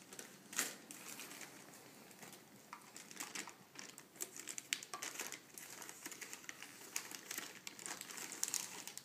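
Gift wrapping paper crinkling and rustling in irregular crackles as a small child's hands pull at a wrapped box to open it.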